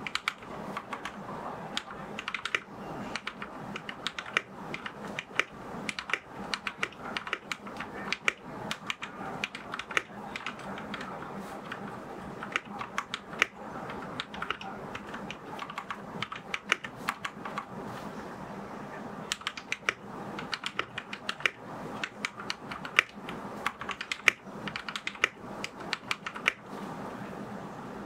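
Typing on an RK71 mechanical keyboard: a fast, uneven, continuous stream of key clacks.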